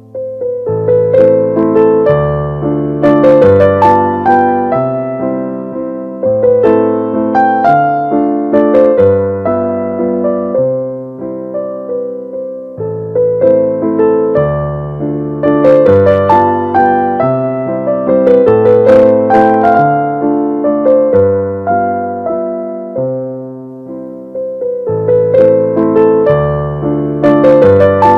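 Background piano music: a melody of struck notes that fade away, over a low bass line that changes note about every second.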